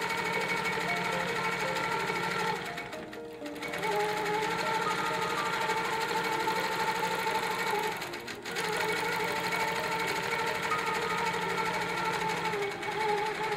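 Longarm quilting machine stitching at speed, a fast steady needle rattle, under background music. The machine sound dips briefly twice.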